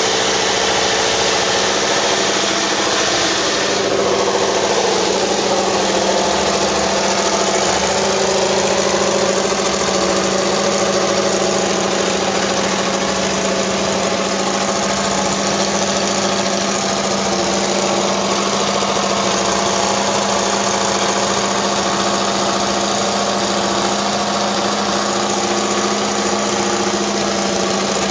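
Mercedes-Benz W196 Grand Prix car's 2.5-litre straight-eight racing engine running steadily at idle as it warms up.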